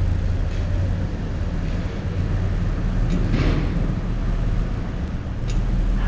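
Steady low outdoor rumble with a brief louder rush about halfway through.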